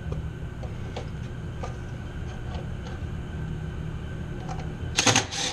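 Light clicks of tools and hardware being handled in a metal electrical control panel, over a steady low machinery hum; about five seconds in come two short, loud scraping bursts.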